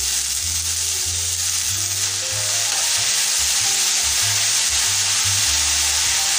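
Chopped banana flower frying with a steady sizzle in hot oil in a kadai, over a tempering of shallots and curry leaves, while it is stirred with a spoon.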